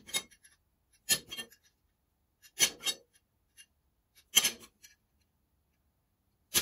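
Sharp metallic clacks, five of them spaced a second or two apart: steel parts and measuring tools being set down and handled on a steel workbench while measurements are checked.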